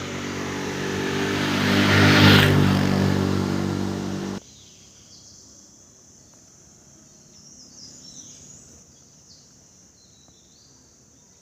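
A loud engine-like drone with a rushing hiss swells for about four seconds and then cuts off abruptly. It is followed by a quiet outdoor background of steady insect buzzing and a few short bird chirps.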